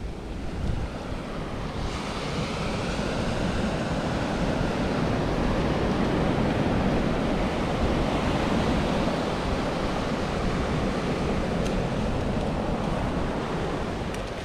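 Ocean surf breaking and washing up a sandy beach, swelling louder through the middle and easing near the end, with wind buffeting the microphone.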